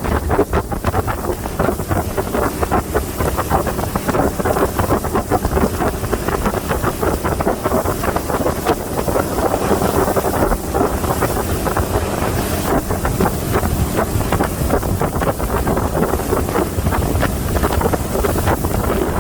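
Wind buffeting the microphone aboard a motorboat under way, with the boat's engine and water noise beneath, steady throughout.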